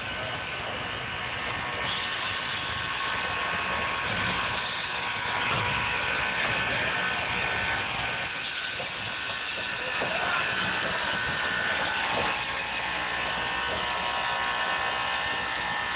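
Steam locomotive SCPC 2 pulling a passenger train slowly into a station, with a steady high-pitched squeal over the rumble and hiss of the train rolling past. Faint crowd voices underneath.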